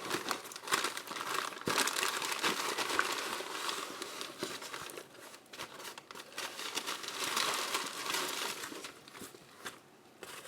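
Packaging being crumpled and rustled by hand as items are dug out of a package: an irregular crinkling with small crackles, easing off briefly about halfway through and again near the end.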